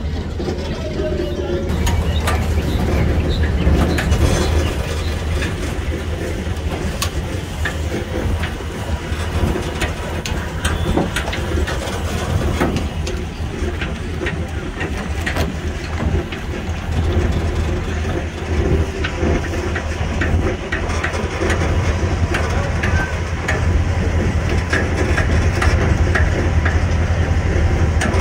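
Open-air tourist tram running along sandy resort paths: a steady low engine rumble with frequent rattles and knocks from the open carriages.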